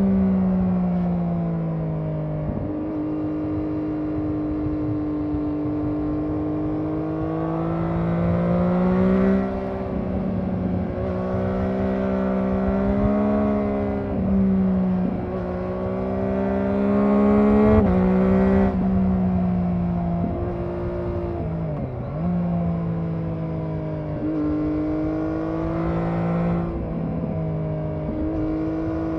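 Triumph Daytona 675R's inline three-cylinder engine running under load on the road, its pitch climbing slowly and then dropping sharply several times as the rider changes gear or rolls off the throttle.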